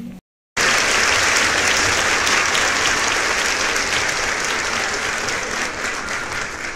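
A roomful of people applauding, dense clapping that starts abruptly after a brief silence about half a second in and eases slightly near the end.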